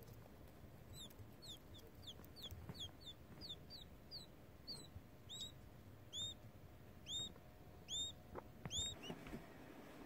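Newly hatched quail chick peeping: short, high peeps falling in pitch, about two a second, starting about a second in, then louder up-and-down peeps about once a second through the second half.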